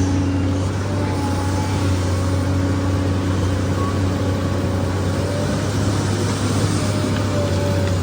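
SANY excavator's diesel engine running steadily under working load, a constant low drone with a faint steady whine above it.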